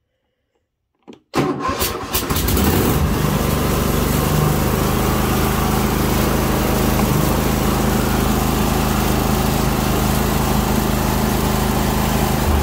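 Cub Cadet LTX 1050 riding mower engine started with the key: a click, a second or so of cranking, then it catches and runs steadily.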